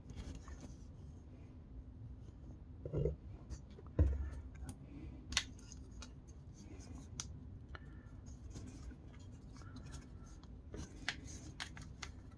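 Hard plastic toy parts being handled and folded: faint rubbing with scattered small clicks, and one louder knock about four seconds in.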